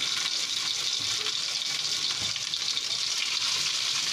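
Dried fish (daing) frying in hot oil in a wok, a steady sizzle.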